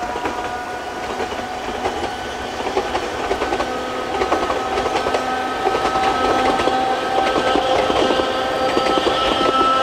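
Narrow-gauge electric train with nose-suspended traction motors running past: the motors give a steady whine over the clatter of wheels on the rails, both getting louder as the train comes closer.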